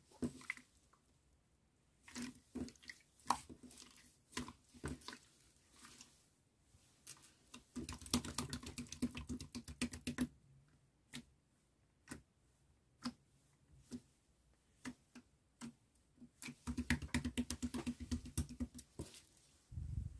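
Hands kneading and squishing clear jelly slime, giving scattered clicks and pops, with two runs of rapid crackling about eight seconds in and again from about seventeen seconds.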